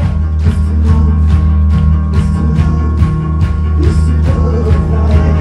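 Live music played loud through a club sound system: a heavy held bass under a steady beat of about three drum hits a second.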